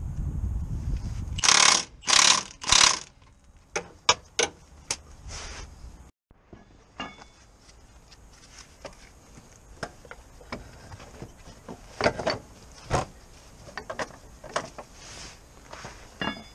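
Cordless impact wrench working a front suspension bolt, running up and then hammering in three short bursts. After that come scattered metallic clicks and knocks of hand tools on the suspension and hub.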